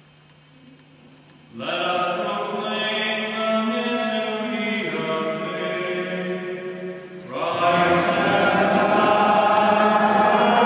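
Voices chanting a sung part of the Catholic Mass. The chant starts about one and a half seconds in, dips briefly, and comes back louder and fuller about eight seconds in.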